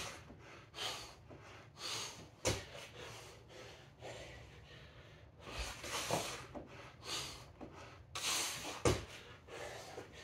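A man breathing hard between push-ups, sharp breaths about once a second, with two thuds of feet landing on a rubber gym floor.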